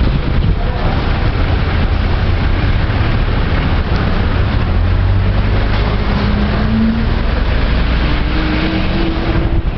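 Steady street-traffic noise from scooters and buses, a continuous low rumble, with a vehicle's whine rising in pitch over the last few seconds.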